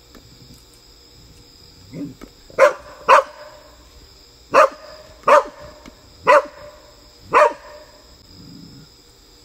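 A corgi-Labrador mix dog barking at a frog in the pool: six sharp single barks, the first two close together and the rest about a second apart. A steady high insect drone sits behind them.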